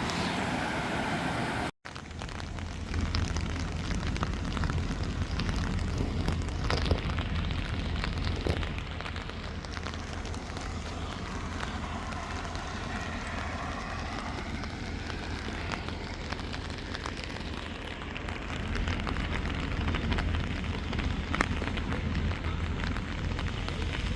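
Heavy rain falling steadily, with a steady low hum underneath. The sound drops out for an instant about two seconds in.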